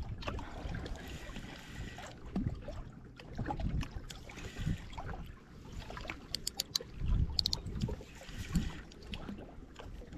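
Wind buffeting the microphone with uneven low rumbling and handling knocks, and a short run of sharp clicks about six to seven and a half seconds in.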